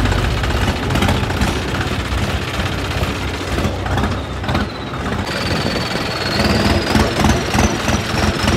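Tractor engine running steadily while the tractor drives, with rattles from the machine. A thin, high tone joins in about five seconds in and rises slightly.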